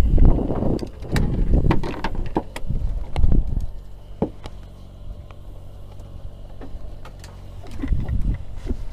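Close knocking, bumping and rubbing on a fishing boat's deck for the first three and a half seconds or so. After that comes a steady low hum of the boat's machinery, with scattered sharp clicks and taps.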